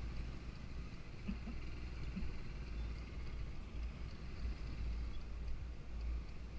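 A motorcycle riding along a road, recorded by a camera on the bike: steady wind rumble on the microphone over road and engine noise. A few faint short tones come about one to two seconds in.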